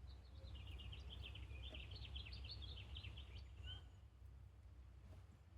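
A small songbird singing faintly in the distance: one quick twittering phrase of short high notes lasting about three and a half seconds, over a steady low rumble.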